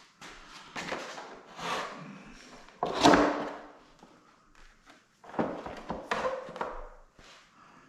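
Irregular knocks and rubbing from handling a boat console while its vinyl cover is pressed on, with one louder scraping knock about three seconds in.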